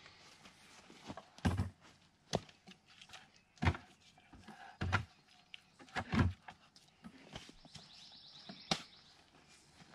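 Handling noises: half a dozen separate dull thumps and knocks as a log is shifted on a wooden sawhorse and chainsaws are set down and picked up, with footsteps on grass. A brief run of rapid high ticking comes near the end.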